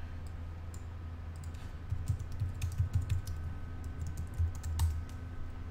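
Typing on a computer keyboard: a quick, irregular run of key clicks starting about a second and a half in, as login details are entered.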